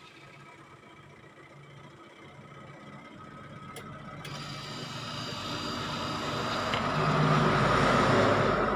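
Twin-tub washing machine's newly replaced wash motor running on test, a steady mechanical hum that builds up louder over the last few seconds.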